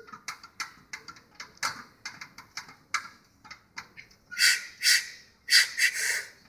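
Scattered light clicks and knocks, then two loud, hissing forced exhalations about four and a half and five and a half seconds in, as the lifter strains under a heavy barbell back squat.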